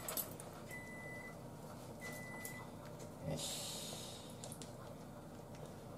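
Two short, high electronic beeps, each about half a second long, about a second apart in the first half, then a brief rustle a little past the middle and a few faint clicks.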